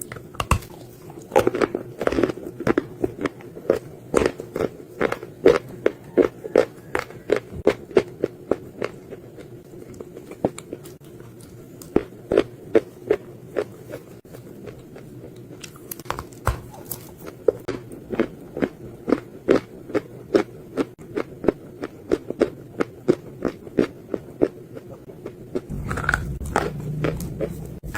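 Close-miked chewing of crunchy dry clay: a long run of sharp crunches, about two or three a second, thinning out for a few seconds in the middle. A low rumble comes in near the end.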